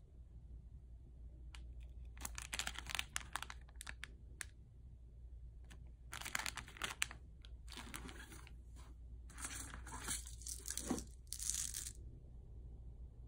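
Thin plastic snack wrapper crinkling as it is handled and turned over in the hands, in several short bursts of rustling.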